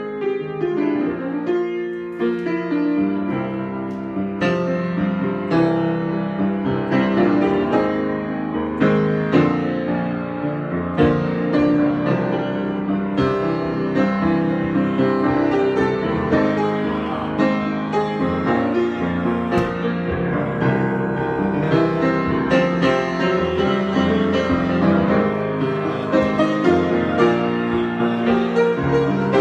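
Solo piano improvisation: a steady flow of chords and single notes, struck and left to ring.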